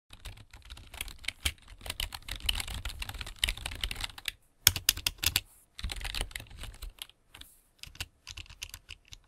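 Computer keyboard typing: rapid keystrokes in dense runs, a brief pause about four and a half seconds in, then shorter bursts of keys that thin out toward the end.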